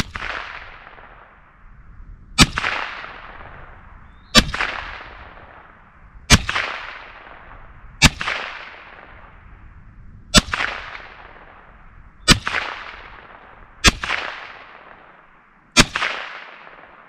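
Ruger 10/22 takedown rifle firing CCI Mini-Mag .22 LR rounds one at a time: about nine sharp shots, roughly two seconds apart, each trailing off in a long echo.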